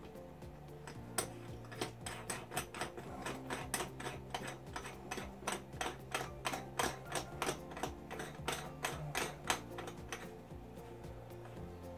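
A sink drain fitting's nut being threaded on and tightened from beneath while the flange is held from above: a run of light, fairly regular clicks, about two to three a second, that stops near the end.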